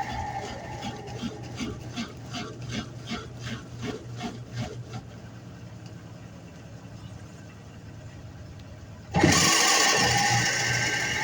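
Washing machine with a faulty transmission running. A regular clicking, about three clicks a second, fades out over the first few seconds and leaves a low hum. About nine seconds in, the motor comes on again suddenly with a loud, steady whine.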